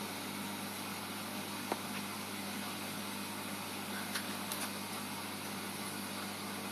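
Steady low hum and even hiss of reef aquarium equipment, with a few faint clicks about two and four seconds in.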